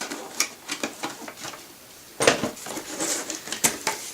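Unpacking sounds: wooden brush boxes and packaging being handled, with scattered small clicks and taps and one louder knock a little past two seconds in.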